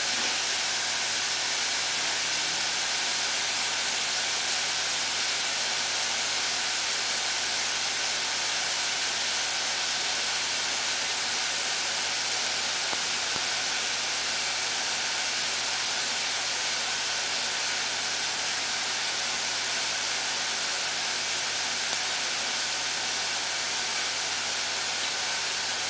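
Steady, even hiss over a low hum.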